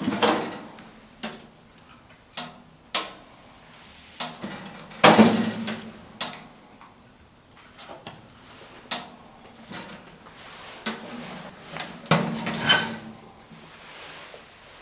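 Irregular knocks and clanks of hard objects being handled, about a dozen in all, some ringing briefly; the loudest come about five seconds in and again near twelve seconds.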